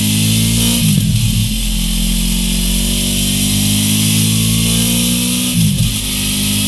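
Honda VFR800F's V4 engine through a Mivv Speed Edge exhaust, pulling under load on a test bench with the revs climbing steadily. About a second in and again near the end the revs drop sharply and build up again, as at a gear change.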